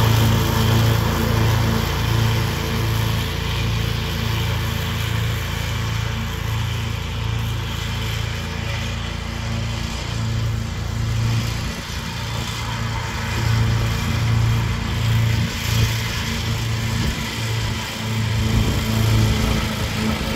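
Ride-on lawn mower engine running steadily under load as it cuts grass, a constant pulsing hum.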